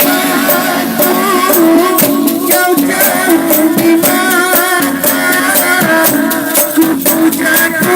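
Band music playing the song, with sharp percussion keeping a steady beat under a wavering melody line.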